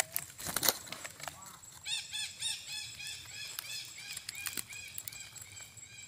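Parakeets calling: a quick series of short, arched, chirping calls, about three a second, starting about two seconds in. Two sharp clicks come first and are the loudest sounds. A faint steady high whine runs underneath.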